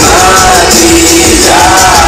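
Live band playing loudly, with a singer's held, sung notes over the music, heard from within the crowd at the concert.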